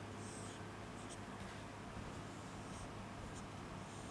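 Marker pen drawing on a whiteboard: a longer stroke near the start, then a few brief ones, faint, over a steady low hum.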